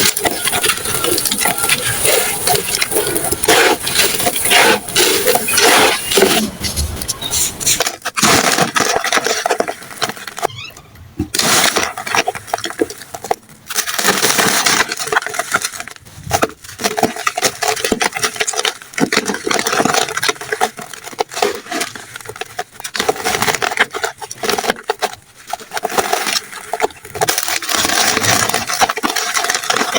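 Crumbly, dusty material being crushed, a continuous crunching and crackling of many small breaks, with brief pauses between squeezes.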